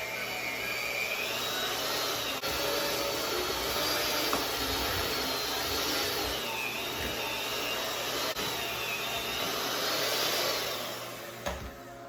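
Electric mixer running steadily, its motor whine wavering in pitch as it mixes flour into cookie dough; it cuts off near the end.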